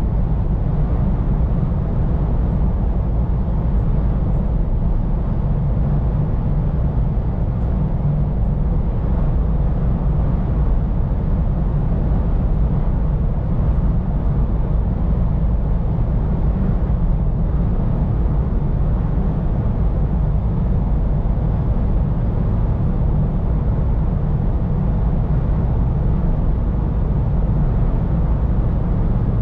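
Scania P410 truck cruising at a steady speed, heard from inside the cab: a constant low engine drone mixed with road and tyre noise.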